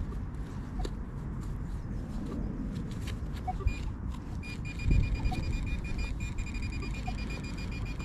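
Handheld metal-detecting pinpointer scraped around in the soil of a dig hole, then sounding a steady high alert tone from about halfway through as it picks up the buried target, which is still deeper in the hole. Low wind rumble on the microphone underneath.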